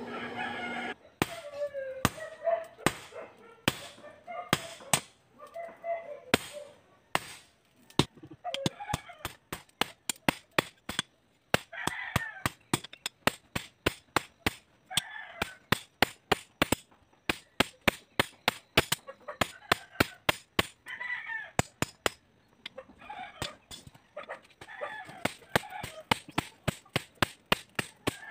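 Hand hammer striking a red-hot steel blade on an anvil: sharp metallic blows, scattered at first, then a steady run of about two a second from the middle on. Chickens cluck and a rooster crows several times in the background.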